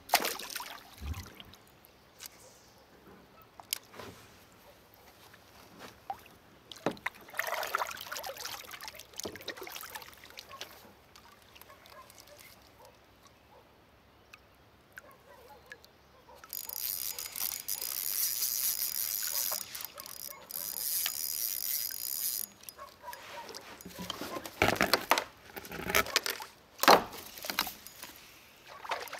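Water sloshing and splashing around a kayak, with knocks and clicks from fishing gear handled against the hull. A steady high hiss lasts several seconds in the middle, and a run of sharp knocks comes near the end.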